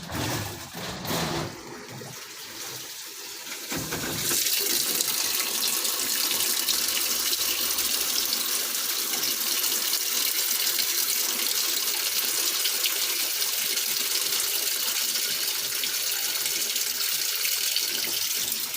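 Sharp ESX715 top-loading washing machine filling its tub: water pours in steadily through the inlet, starting about four seconds in after a few knocks. The water-level pressure sensor has just been replaced to clear an E2 error.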